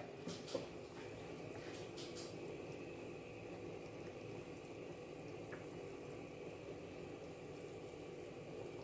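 Pot of chicken in tomato sauce simmering on the stove, a steady low bubbling, with a couple of light clicks just after the start.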